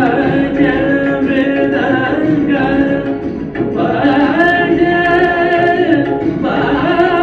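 Recorded song for dance: a singer holding long, wavering notes over instrumental accompaniment, played through a small amplifier.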